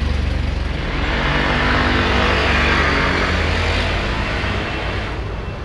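A motor vehicle going by close to the microphone: a steady low engine hum under a rushing noise that swells to a peak about halfway through and then fades.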